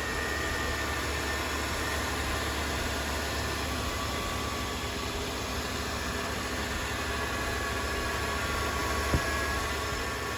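LT1 V8 engine idling steadily just after starting, running on the newly installed alternator, with one sharp click about nine seconds in.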